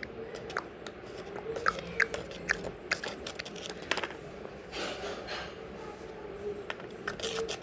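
A spoon stirring a thick dish-soap and flour slime mixture in a bowl, with irregular clicks and scrapes of the spoon against the bowl.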